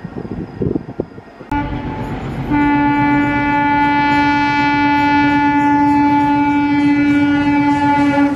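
Indian Railways train rumbling and clattering along the track, then a locomotive horn sounding one long, steady blast. The horn comes in softly about a second and a half in, turns loud a second later and holds for about six seconds.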